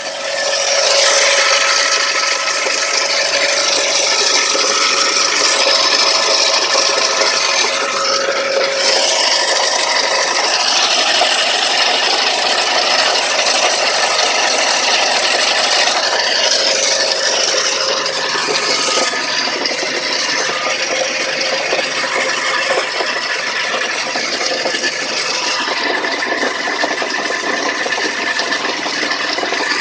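Third-generation Hyundai Sonata engine running steadily with a rapid knocking rattle, an engine knock whose cause the owner does not know.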